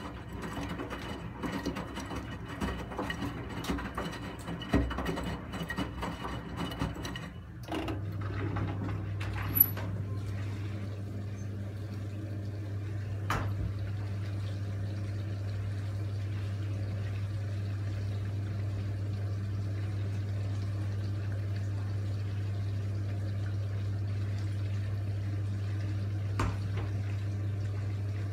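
Miele front-loading washing machine: the drum tumbles the laundry with irregular clicks and knocks, then stops about eight seconds in. A steady low hum with running water takes over while the drum stays still.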